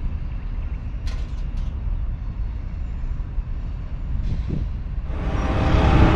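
Low rumble of a long freight train's cars rolling past, with a few brief squeaks and clicks about a second in. About five seconds in, a louder sound with several steady tones rises over it.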